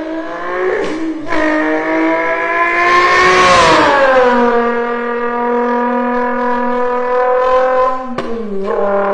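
A man's voice imitating a car flyby: an engine-like buzzing tone that climbs as the imagined car approaches, peaks about three and a half seconds in, then drops in pitch and holds steady as it passes. Near the end the tone breaks off and starts again lower.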